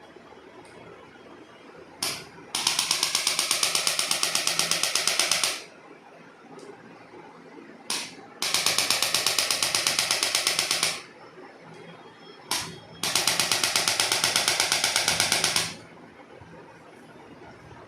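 Handheld electric percussion instrument tapping rapidly, about ten strikes a second. It runs three times for about three seconds each, and each run is preceded by a brief short burst.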